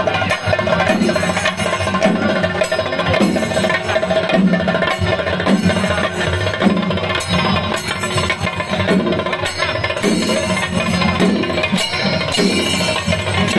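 Music with a strong percussion beat.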